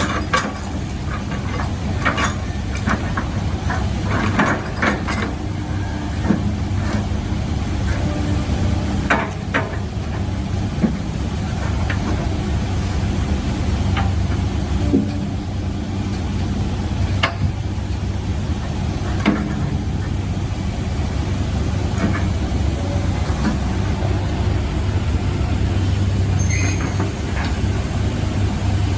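Heavy diesel engine running steadily under load, with scattered sharp knocks and clanks.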